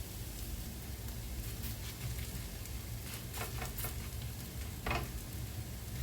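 Grated potato hash browns sizzling in hot oil and bacon fat in a frying pan, with a few louder crackles about three and a half and five seconds in.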